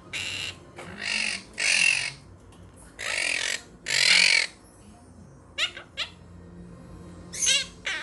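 Quaker parrots (monk parakeets) squawking: about five loud, harsh squawks in the first four and a half seconds, then a few short chirps near the end.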